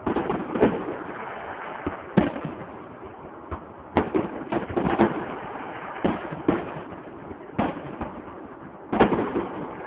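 Fireworks going off: a rapid, irregular series of bangs and pops with short echoing tails, the loudest about two seconds in.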